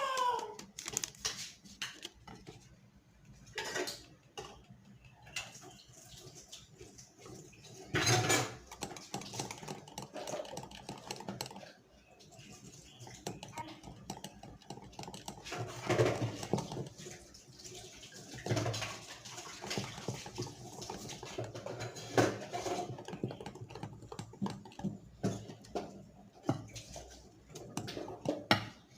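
Irregular taps, knocks and clinks of kitchen utensils against a bowl and sieve as flour and baking powder are sifted and mixed into cake batter. The loudest knocks come about 8 seconds in and again around 16, 18 and 22 seconds.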